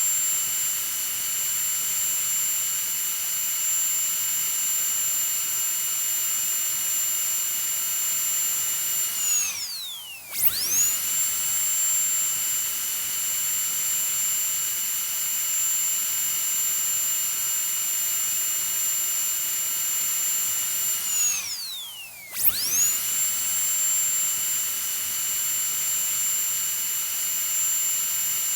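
High-speed dentist's drill running with a steady high-pitched whine, winding down with a falling pitch and spinning back up twice, about ten and twenty-two seconds in.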